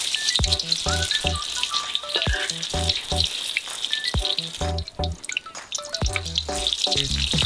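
Beaten egg for a minced-shrimp omelette frying in deep hot oil in a wok, a steady sizzle that dies down briefly past the middle and then picks up again. Background music with a regular bass beat plays throughout.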